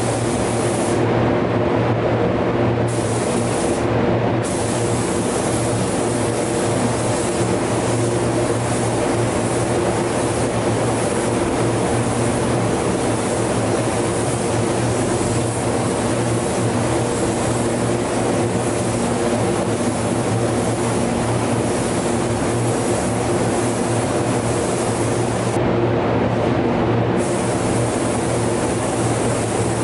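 Gravity-feed paint spray gun hissing steadily as it sprays a car bumper, over a steady low mechanical drone. The hiss cuts out briefly twice near the start and once near the end, when the trigger is let off.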